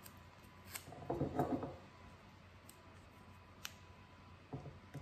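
A small strip of double-sided carpet tape being handled in the fingers, with a short crackly rip about a second in and a few light clicks.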